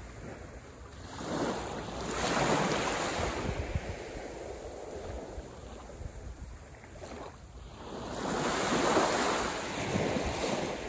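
Small waves breaking and washing up a sandy beach in two surges, one about two seconds in and one near the end, with a softer wash between them.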